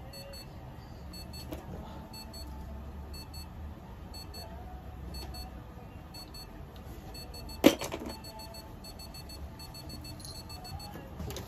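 An electronic device beeps in short, high-pitched clusters that repeat all through, over a low steady hum. A single sharp click about two-thirds of the way through is the loudest sound.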